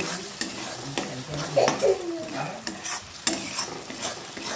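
A spatula stirring and scraping thick masala paste as it sizzles in oil in a metal kadai, with repeated short scrapes against the pan. The masala is nearly fully fried, at the stage where it releases its oil. A short falling tone sounds about a second and a half in.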